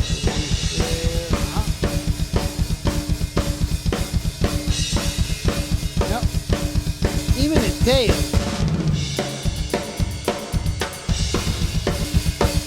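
Thrash metal drum kit playback: a fast, steady double bass drum pattern under sharp snare hits and cymbals, the drums sent through a plate reverb set to a 2-second decay. The beat changes about two-thirds of the way through.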